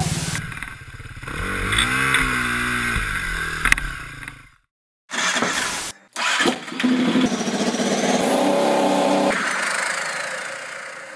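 Motorcycle engine revving up and back down. After a short gap of silence it bursts into life again, holds a steady pitch for a couple of seconds, then fades out.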